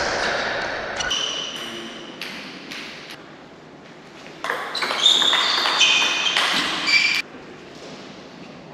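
Table tennis rally: the ball clicking off the rackets and the table, with a louder spell of short, high squeaks just past halfway that cuts off suddenly.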